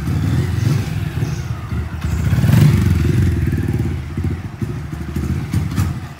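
Motorcycle engine running under throttle during a wheelie, its sound rising and falling, loudest about two and a half seconds in.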